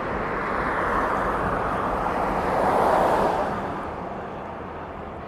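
Road traffic: a car passing by, its tyre and engine noise swelling to a peak about three seconds in and then fading away.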